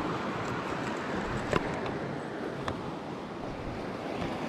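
Wind rushing over the camera's microphone, a steady rushing noise, with a couple of sharp clicks partway through.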